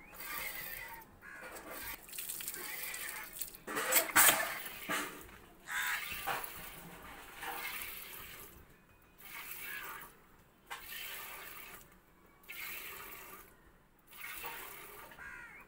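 Water buffalo being hand-milked: streams of milk squirting into a steel pail in a repeating pattern, loudest about four seconds in.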